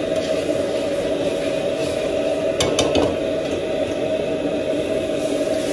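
Food frying and being stirred in a wok over a steady roar, with a few sharp metal clanks about two and a half seconds in.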